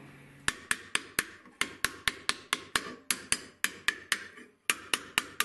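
Quick, even hammer taps on a copper tube fitted over a mandrel in a vise, about four a second, with a short pause near the end, as the copper powder-flask body is worked into shape.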